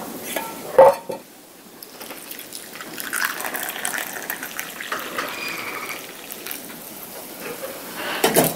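Liquid poured into a wooden kuksa cup, a trickling fill of a few seconds, with a sharp knock about a second in and another near the end.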